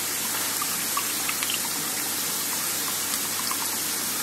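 Diced chicken frying in sesame oil in a skillet: a steady sizzling hiss scattered with small pops. Soy sauce trickles from its bottle into a metal measuring cup at the same time.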